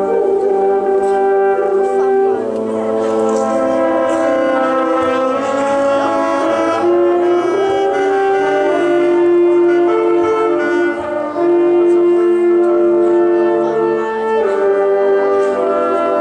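Small wind ensemble of alto saxophone, French horn, trombone and clarinet playing together: a slow passage of long held notes in several parts, moving from chord to chord.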